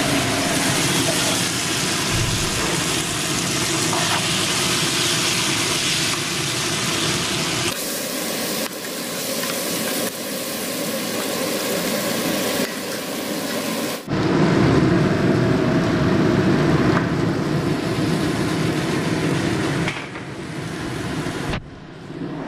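Ground masala paste sizzling as it fries in hot oil in a pan: a steady frying hiss, with abrupt changes in level about 8 and 14 seconds in.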